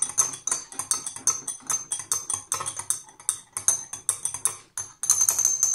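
Metal spoon stirring liquid in a small glass jar, clinking against the glass several times a second in an uneven rhythm, with a high ringing from the glass.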